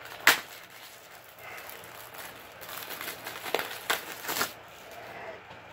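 Wrapping being torn and crumpled off a Blu-ray case: a sharp snap just after the start, then crinkling with a few sharp clicks from about a second and a half to four and a half seconds in.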